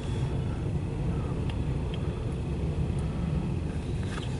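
CSX intermodal freight train's double-stack well cars rolling past, a steady low rumble of wheels on rail with a few faint ticks, muffled through the car's windshield.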